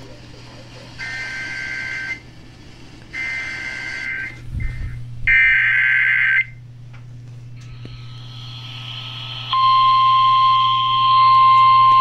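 Emergency Alert System tones from a radio: three bursts of about a second each of the shrill two-tone SAME data header, then the steady EAS attention tone comes in loudly over the last few seconds. The sequence announces a severe thunderstorm warning.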